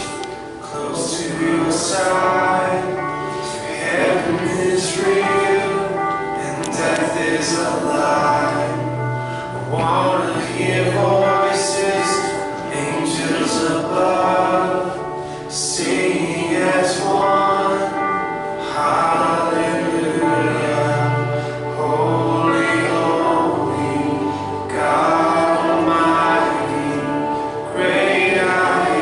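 A worship song sung by a group of voices with musical accompaniment.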